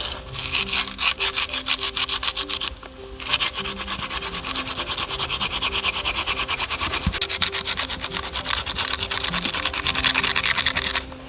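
Rapid, evenly repeated scraping strokes, with a short break about three seconds in, over background music.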